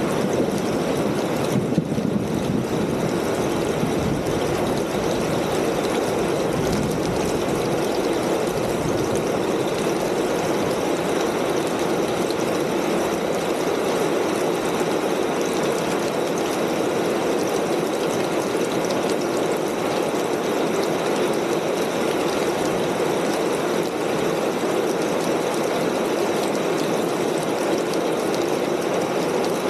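Rain falling steadily on a corrugated tin roof: a dense, even patter of drops that holds the same level throughout.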